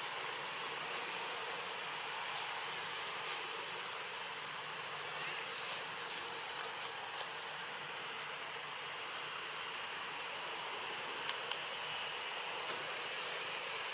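Forest insects droning: one steady, high-pitched buzz that never breaks, over a soft background hiss.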